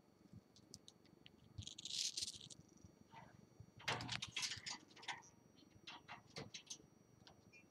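A rose-ringed parakeet bites into a slice of fresh fruit held out by hand, making a quick run of crisp crunching clicks about four seconds in. Scattered beak clicks follow as it chews. A short hiss comes about two seconds in.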